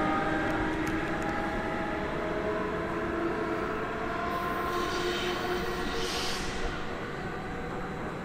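A train runs through the station, its whine falling slowly in pitch as it fades. A brief hiss comes about five seconds in.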